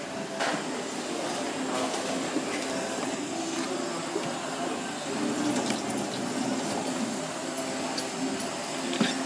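Steady hiss of kitchen background noise, with a few sharp taps as a knife works on a plastic cutting board and scrapes squid innards onto a metal plate, the clearest about half a second in and just before the end.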